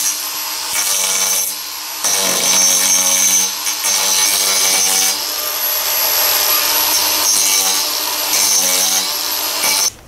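Angle grinder with a TurboPlane carving disc hogging wood off a laminated boat keel. The motor whine shifts in pitch and loudness as the disc bites into the wood, then cuts off suddenly just before the end.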